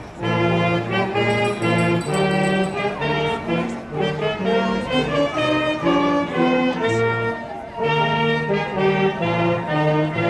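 Brass-led music playing, short notes in a steady rhythm, with brief breaks between phrases.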